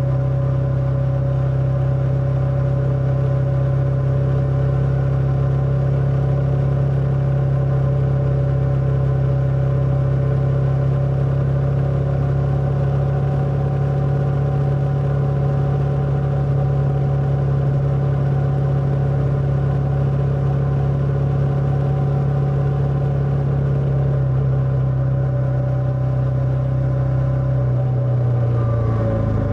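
Motorcycle engine running at a steady, even speed, a constant drone; near the end its pitch drops as it slows.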